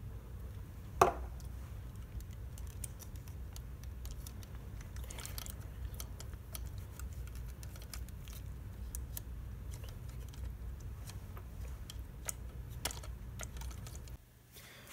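Scattered light clicks and taps of small plastic RC axle, wheel and gear parts being handled, over a steady low hum. A sharper click with a brief falling squeak comes about a second in, and the hum cuts off near the end.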